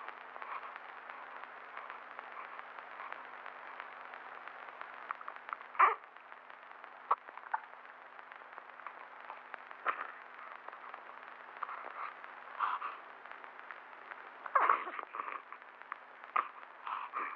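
Steady hiss of an old film soundtrack, with a few brief soft sounds from a newborn baby, small whimpers and breaths. The loudest comes about six seconds in, and a cluster follows near the end.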